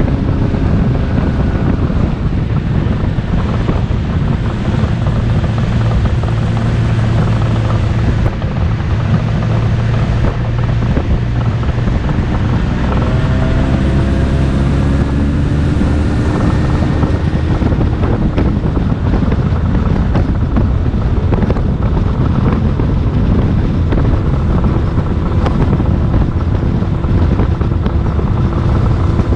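An engine running steadily while under way, its pitch shifting a little partway through, with heavy wind noise on the microphone.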